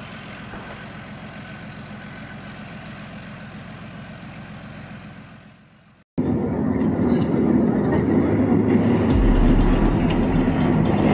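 Leopard 2 main battle tank's V12 diesel engine and tracks: a steady engine sound that fades away, then, about six seconds in, a sudden much louder tank driving fast over dirt with a deepening low rumble from about nine seconds in.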